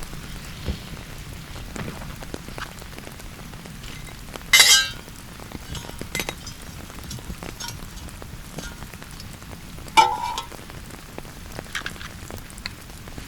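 Steady rain falling, with scattered drips ticking. About four and a half seconds in comes a loud short rustling scrape, and about ten seconds in a sharp metallic clink that rings briefly.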